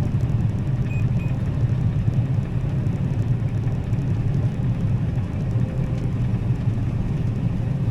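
Combine harvester running steadily while cutting soybeans: a constant, even low drone of engine and threshing machinery.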